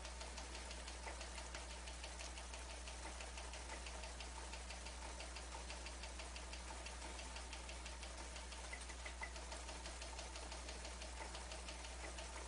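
Faint steady electrical hum and hiss with a fast, even run of light ticks, several a second.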